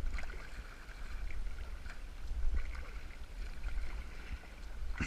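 Kayak paddling: paddle blades dipping and splashing in the water, with a low wind rumble on the microphone.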